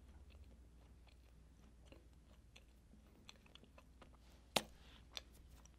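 Faint, soft chewing of a moist chocolate chip cookie, not crunchy, with scattered small wet mouth clicks and two sharper clicks near the end.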